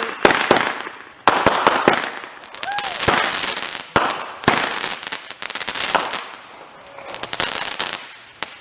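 Consumer fireworks going off in quick succession: a string of sharp bangs mixed with crackling, one every half second to a second, thinning out near the end.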